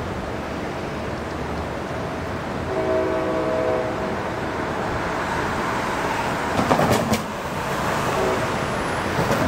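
CSX street-running freight locomotive approaching: its multi-chime air horn sounds one chord for about a second, about three seconds in, over a steady rumble that grows louder. A cluster of sharp knocks comes about seven seconds in, and more near the end.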